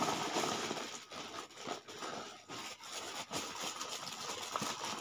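Hands handling medicine packets: rustling and small irregular clicks of packaging being sorted.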